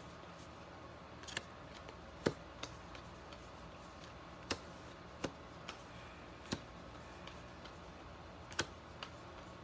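Baseball trading cards being sorted by hand and set down on a table: light, sharp ticks and taps at irregular intervals, about ten in all.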